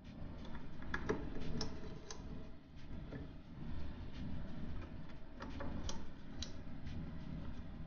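Small screwdriver turning screws into a graphics card's metal heatsink frame: irregular light clicks and ticks of the driver tip and screw, over a low steady rumble.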